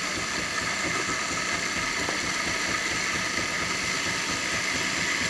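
Jura E8 super-automatic espresso machine frothing milk through its fine foam frother for a cappuccino: a steady machine hum and hiss with a faint high whine.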